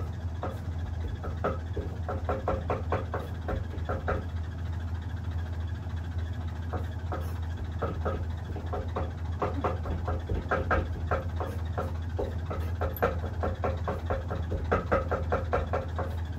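Kitchen knife chopping food on a cutting board: quick runs of short knocks, several a second, with pauses between the runs, over a steady low hum.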